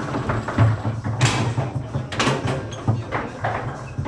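Foosball table in play: sharp clacks of the ball being struck by the rod figures and knocking off the table walls, with rods sliding and rattling between shots, about half a dozen hits in a few seconds.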